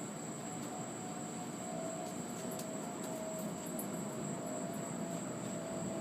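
Steady background noise: a low, even rumble with a faint wavering hum and a faint high, steady whine, with no thunderclap.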